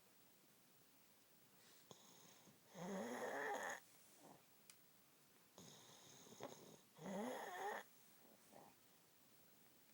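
A sleeping woman snoring: two loud rasping snores about four seconds apart, with softer breathing between them.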